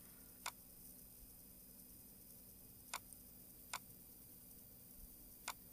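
Four single computer mouse clicks, separate and unevenly spaced, over near-silent room tone: one about half a second in, two around three to four seconds, and one near the end.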